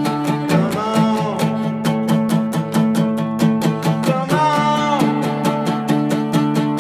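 Acoustic guitar strummed in a steady, quick rhythm, with a voice singing two short, wavering phrases, about half a second in and again about four seconds in.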